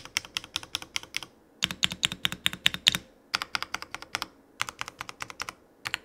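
Keychron C3 Pro mechanical keyboard clacking under rapid key presses, in runs of about a second with short pauses between. It shows off the board's well-tuned stabilizers on the longer keys.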